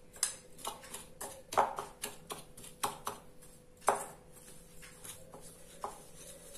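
Hand wire whisk tapping and scraping against the bowl while lightly mixing a thick, dry blend of softened butter, brown sugar and flour: irregular clicks, a few louder knocks around the middle.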